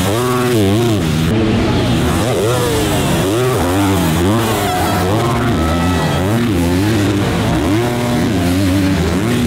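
250-class motocross bikes racing, engines revving up and down rapidly with the throttle, more than one engine heard at once.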